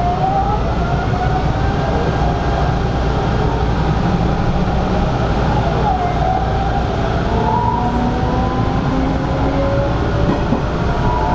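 Hanshin 5500-series electric train running, a steady loud rumble with whining tones that slide up and down in pitch.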